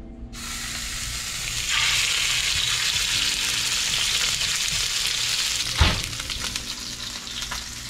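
Marinated yellowjack fillet sizzling in hot olive oil as it is pan-seared on one side; the sizzle swells about two seconds in and eases near the end, with a single knock about six seconds in.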